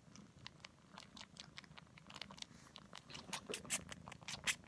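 Kitten sucking on its own paw: a run of small wet sucking clicks that grow louder and quicker, several a second, over the last second and a half.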